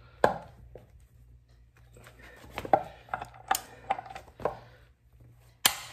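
Metal hand tools and steel control-arm parts being handled: about half a dozen sharp clinks and knocks at uneven intervals, the strongest just after the start and near the end.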